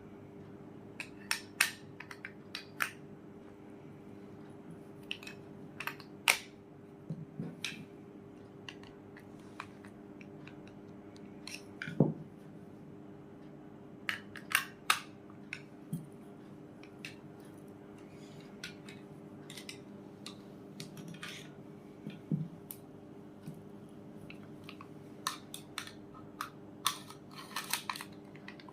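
30 bore pistol being handled while its magazine sticks: irregular sharp clicks and clacks, some in quick clusters, with a louder knock about twelve seconds in. A faint steady hum runs underneath.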